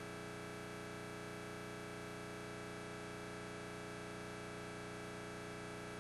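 A faint, steady hum made of several fixed tones over a light hiss, unchanging throughout, with no voices.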